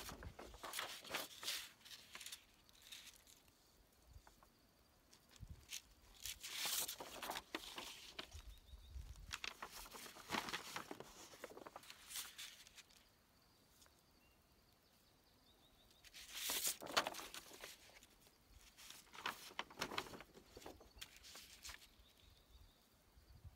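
Sheets of paper rustling and crackling as they are handled, in several bouts with quiet gaps between.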